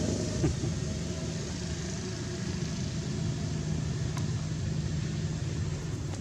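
Steady low engine rumble, like a motor vehicle running, with a single faint click just after four seconds.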